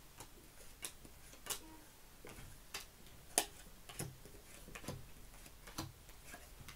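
Playing cards being drawn from a deck and laid down one by one on a table: a string of short, sharp clicks at uneven gaps of half a second to a second.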